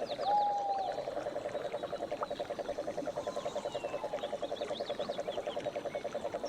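Nature soundscape: a steady, rapid pulsing trill, with short bird chirps and whistles scattered over it.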